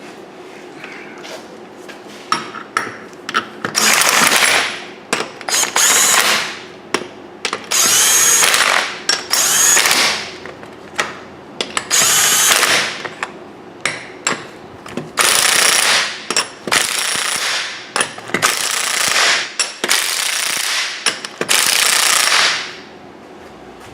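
Impact wrench run in about ten short bursts of roughly a second each, spinning lug nuts on as a car's front wheel is mounted back on the hub.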